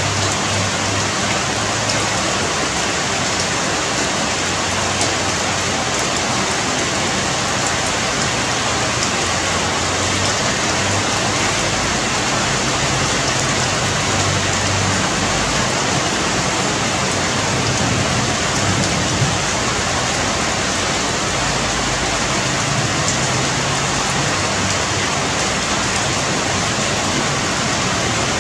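Steady rain falling on the leaves of dense trees: an even, unbroken hiss.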